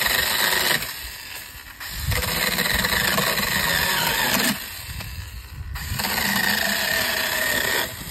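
Cordless 6-inch mini chainsaw running on a Makita-compatible battery, cutting through a thin dead trunk in three bursts of steady whine with short pauses between as the trigger is released.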